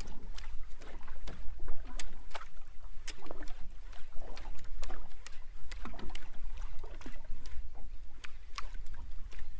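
Small waves lapping and slapping against the hull of a drifting fishing boat, with irregular splashy ticks and gurgles over a steady low rumble of wind on the microphone.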